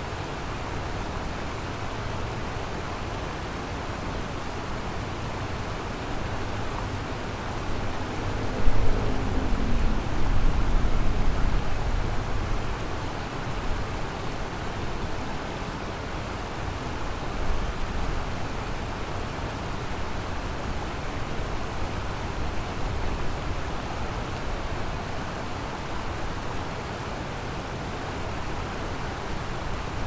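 Kamo River water rushing in a steady, even noise. A louder low rumble swells about eight seconds in and fades by about twelve seconds, with a brief pitched hum at its start.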